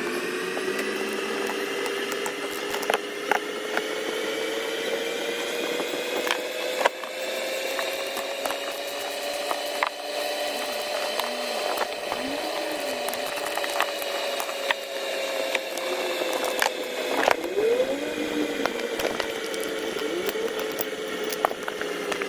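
A small electric power-tool motor runs steadily for about twenty seconds, its whine rising slightly in the middle and falling back, with scattered sharp clicks and ticks of the tool working against metal. It winds down at the very end.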